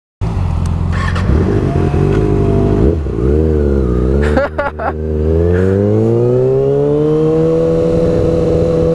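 Kawasaki Ninja ZX-6R 636 sport bike engine under way. Its pitch rises and falls a few times in the first half, then climbs smoothly as the bike accelerates and settles to a steady note near the end.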